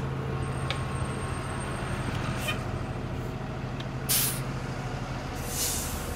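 City transit buses running at a stop, a steady low engine hum, with short hisses of released compressed air, the loudest about four seconds in and another at about five and a half seconds.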